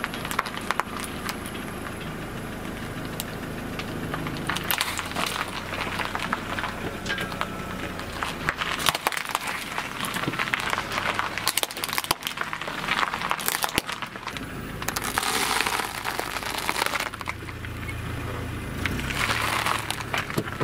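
Car tyre rolling over and crushing a pile of plastic disposable lighters, with repeated sharp cracks and snaps over the car's engine running low. Near the end, dry biscuits crunch under the tyre.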